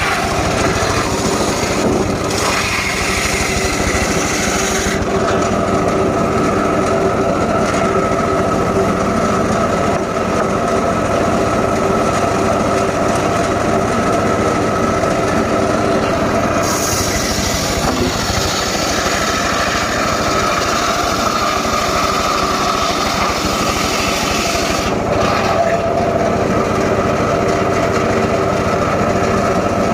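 Engine-powered saw running continuously while cutting gmelina wood, with a steady engine tone. The high hiss of the cut fades about five seconds in and comes back from about seventeen to twenty-five seconds.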